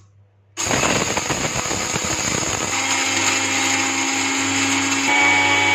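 Anex electric blender's dry-grinding jar running at high speed, grinding sprouted wheat grains and cardamom into powder. A loud whirring grinding starts about half a second in, then settles into a steadier motor whine partway through as the grains turn to flour.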